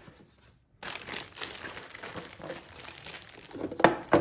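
Packaging crinkling and rustling as unboxed parts are handled, starting about a second in, with a couple of sharp knocks near the end.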